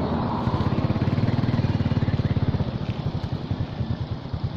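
A small engine idling with a fast, low, even throb, which thins into separate beats in the second half.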